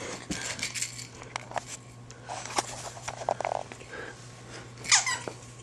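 Scattered soft rustles, taps and clicks of a dog playing with an elastic toy on a carpeted floor, mixed with handling noise from the camera. A brief, sharper sound stands out about five seconds in.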